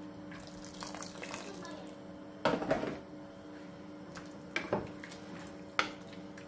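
A wooden spoon stirring chicken pieces in simmering broth in a stainless-steel stockpot: liquid sloshing, with the spoon knocking against the pot several times, loudest about two and a half seconds in. A steady hum runs underneath.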